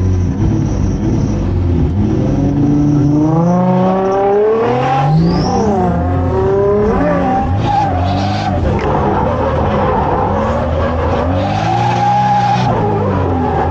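Toyota Chaser JZX100's turbocharged JZ inline-six revving hard as the car launches and accelerates, its pitch climbing steeply a few seconds in, then rising and falling with the throttle. Tyres squeal in a drift in the second half.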